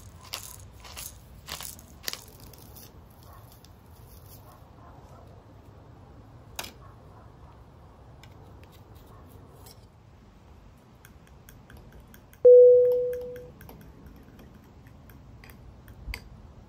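Pepper mill grinding peppercorns in a few quick crunchy strokes at the start, then faint clicks of utensils and a glass bowl. About 12 seconds in, a single sharp strike rings out loudly at one clear pitch and fades over about a second.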